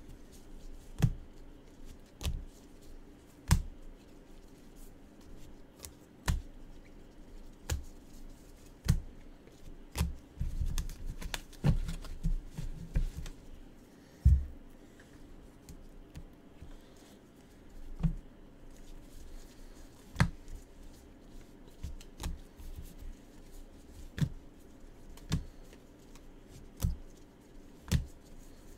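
Gloved hands handling a stack of trading cards: sharp clicks and taps about every one to two seconds as cards are flipped and laid down, with a denser run of rustling taps about ten seconds in.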